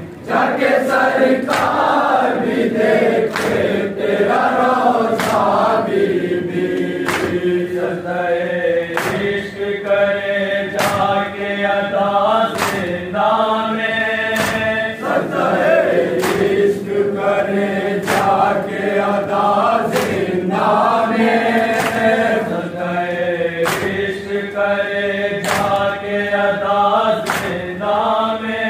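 A group of men chanting a noha (Shia lament) in unison, with the mourners' hands striking their chests in matam on a steady beat about every second and a half.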